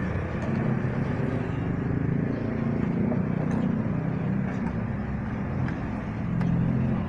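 Kawasaki Fury 125 motorcycle engine idling steadily while the bike stands still.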